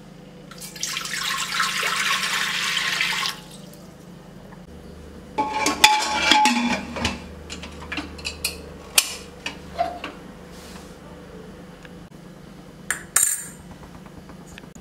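Water poured into a steel pressure cooker for about two and a half seconds. Then the metal lid is fitted and locked with a burst of clanking and scraping, followed by scattered sharp clinks of steel vessels and a last pair of clinks near the end.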